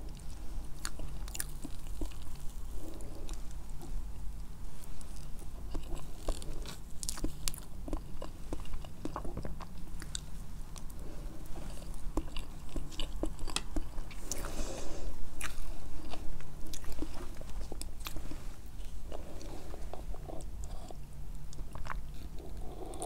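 Close-miked chewing of sakura chiffon cake with whipped cream: soft, wet mouth smacks with many short, sharp clicks, louder for a few seconds past the middle.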